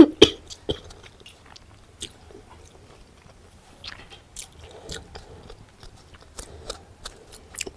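Close-up eating sounds: a person biting and chewing with crisp crunches, a burst of loud crunchy bites right at the start, then quieter scattered chewing.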